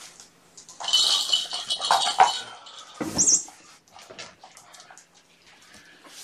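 Plastic ball-track cat toy rattling and clattering as it is picked up and carried, its ball rolling in the track, for about a second and a half. A short high-pitched sound follows about three seconds in.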